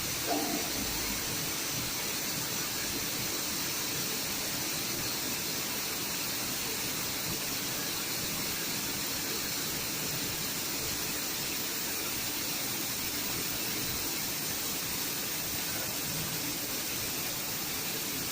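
Steady hiss of automatic spray painting, compressed air and paint spray running without a break, with a brief low knock just after the start.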